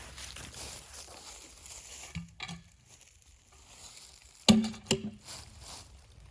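Bark being scraped and stripped off a log by hand, with a scratchy rasp and two loud, sharp knocks about four and a half seconds in.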